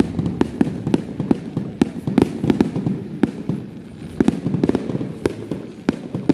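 A fireworks display: many sharp pops and crackles in a quick, irregular string, several a second.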